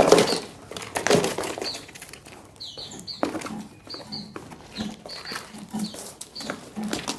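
Small wild-caught songbirds giving short, repeated high chirps, with wing flapping, rustling and knocks as they move about in their box or cage. The clatter is loudest in the first second or so.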